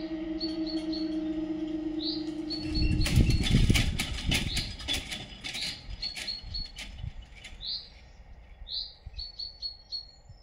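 Level crossing barrier booms rising, the barrier mechanism humming steadily until it stops about three seconds in, followed by a couple of seconds of clattering and knocking as the booms settle upright. A bird chirps repeatedly over the top.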